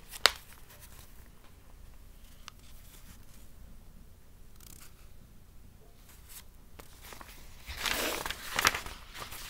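A sharp click just after the start, then faint handling noise, and a louder rustle and scrape of book pages about eight seconds in as the book is swept close past the microphone.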